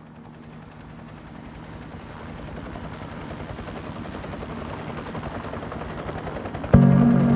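Helicopter rotor noise, a fast pulsing chop, fading in and growing steadily louder. Near the end a loud, sustained low synth chord comes in suddenly over it.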